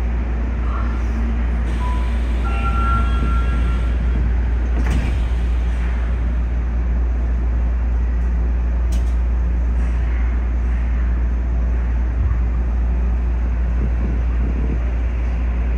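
Subway train running through a tunnel, heard from inside the driver's cab: a steady low rumble of wheels and running gear, with a brief high tone about three seconds in.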